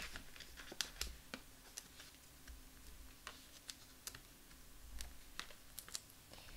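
Faint, scattered light clicks and taps of hands handling cardstock and craft supplies on a desk.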